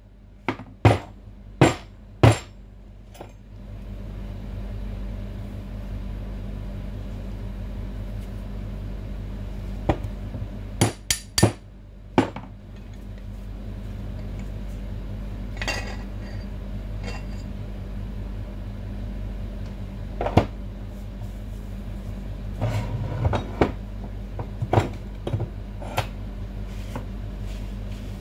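Sharp metal knocks and clinks as the steel parts of a barber chair's hydraulic lift cylinder are handled, knocked and set down on the workbench: three in the first few seconds, a cluster near the middle and scattered ones later. A steady low hum runs underneath.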